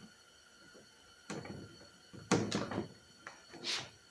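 A stiff plastic plate being handled and pressed into place for a fit check: a few separate knocks and scrapes, the loudest a little over two seconds in.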